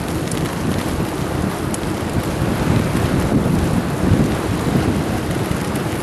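Steady wind and road noise from a moving car, with a low rumble buffeting the microphone.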